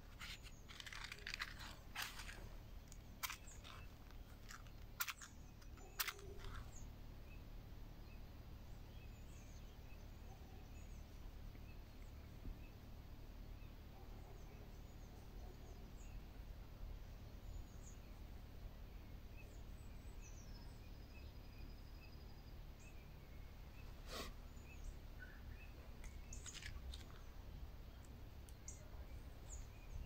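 Quiet woodland ambience: faint bird chirps over a steady low background hum. A few sharp clicks and crackles from small objects being handled, most in the first seven seconds and another about 24 seconds in.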